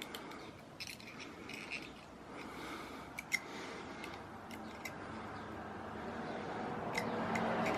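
Faint metal clicks and light scraping of small pocketknife pliers gripping and bending back the bent tip of a Swiss Army knife blade. The sharp ticks come at irregular moments, a few seconds apart.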